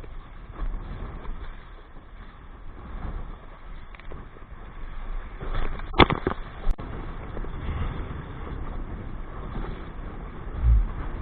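Strong wind buffeting the microphone with a gusty low rumble, with a sharp knock about six seconds in and a low thump near the end.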